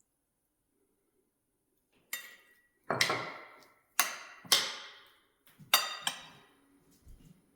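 Kitchenware clinking: six sharp strikes, each ringing out briefly, irregularly spaced, with a few softer knocks near the end.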